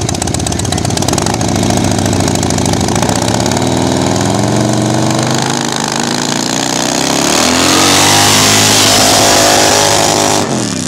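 Drag-racing motorcycle engines running at the line, then accelerating hard, several rising pitches climbing through the gears. The sound gets loudest and fills with rushing noise about two-thirds of the way in, then drops off just before the end.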